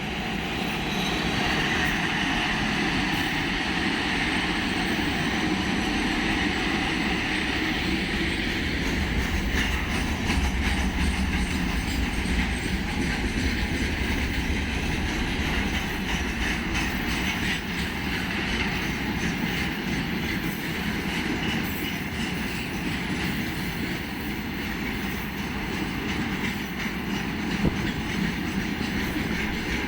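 A VL11M electric locomotive hauling a freight train rolls past. The sound builds over the first couple of seconds, then runs on steadily as the wagons' wheels clatter over the rail joints, with a deep rumble about ten seconds in.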